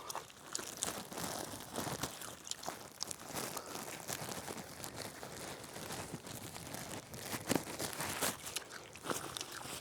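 Irregular crunching and crinkling rustles, with sharp clicks scattered throughout.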